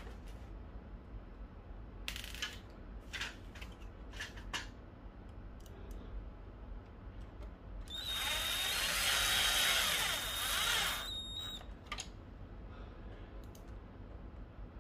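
Electric screwdriver running for about three and a half seconds with a steady high whine, driving a screw into a laser printer's frame. Before it, a few light clicks and knocks from handling parts.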